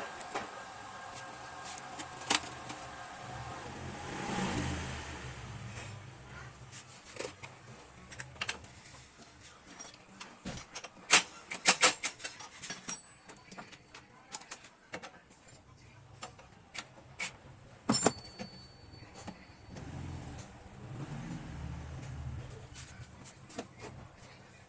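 Scattered metallic clinks and knocks of tools and parts being handled during motorcycle exhaust repair work, loudest in a cluster about eleven seconds in. A low engine rumble swells briefly twice, once around four seconds in and again near the end.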